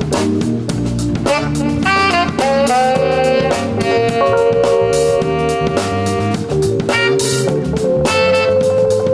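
A live jazz combo playing, with electric guitar, electronic keyboard and drum kit with cymbals keeping a steady beat.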